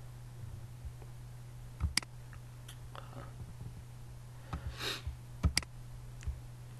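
Computer mouse clicking a handful of times during screen work: a sharp click about two seconds in and a quick pair about five and a half seconds in, with fainter ones between. A steady low hum runs underneath, and a short hiss comes just before the pair.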